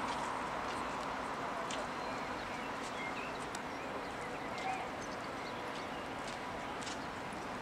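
Freight train of hopper wagons rolling slowly through a station yard: irregular clicks and clanks of wheels over rail joints and points, over a steady rumble with a faint high ringing tone.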